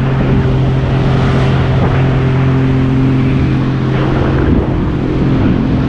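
Jet ski engine running steadily at speed, a constant drone with water and wind noise over it.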